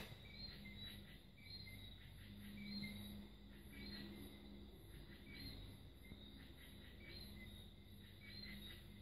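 Faint cricket chirping, short high chirps repeating about once a second, over a low steady hum.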